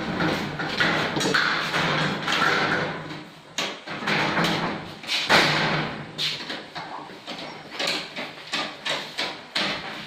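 Steel shelving panels and shelves being handled and fitted: sheet metal scraping and sliding, with repeated clattering knocks.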